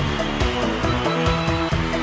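Background music with a steady beat, about four beats a second.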